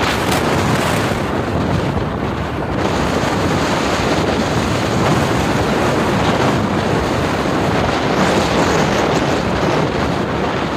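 Wind rushing and buffeting the microphone from a car moving at highway speed, with road and tyre noise underneath.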